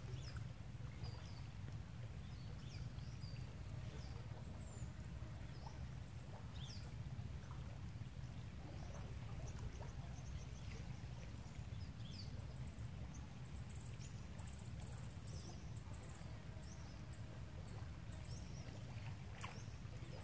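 Riverbank ambience: scattered short bird chirps over a steady low rumble, with a constant thin high-pitched whine. There is a single sharp click near the end.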